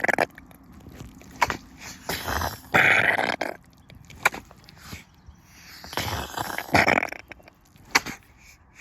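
Rubber boots squelching in thick mud, with wet sucking noises as the boots are pulled out, coming irregularly every second or two.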